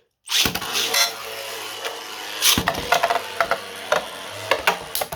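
Two 3D-printed Beyblade spinning tops whirring and clashing in a stadium, with many sharp clicking hits and one loud hit about two and a half seconds in.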